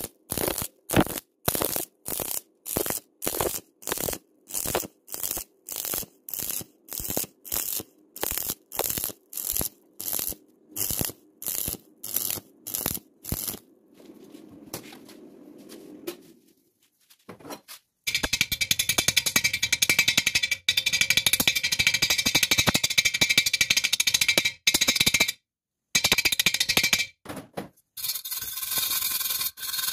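Stick-welding arc on thin metal, struck and broken about twice a second so it crackles in short, even pulses. After a short pause, the arc runs unbroken with a steady frying crackle for several seconds, then cuts out and starts again briefly near the end.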